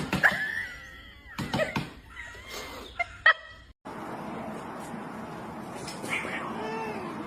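Cat meowing: one long drawn-out call near the start, then several short calls. After a cut, one arching call comes over a steady hiss near the end.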